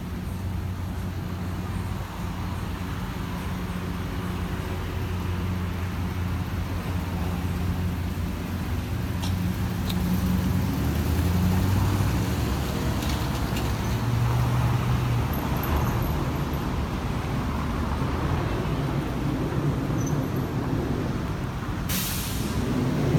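A motor vehicle's engine running low and steady, its pitch shifting a little partway through, with a short hiss about a second before the end.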